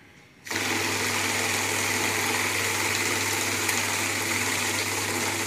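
Xtraon note counting machine starting up about half a second in and feeding a stack of banknotes through its rollers: a steady, fast whir of the motor with the rapid flutter of the notes.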